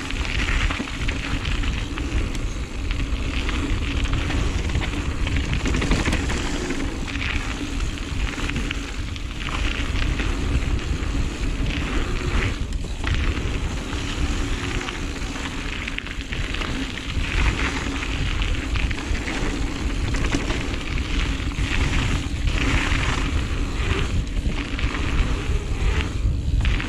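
Giant Reign mountain bike rolling fast down a dirt flow trail: steady wind rush on the GoPro microphone over tyre noise on dirt and gravel, with rattling from the bike.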